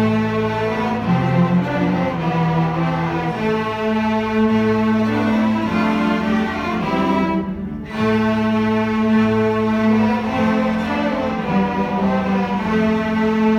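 Student string orchestra playing, with violins over sustained low cello and bass notes. The music breaks off briefly about halfway through, then the full ensemble comes back in.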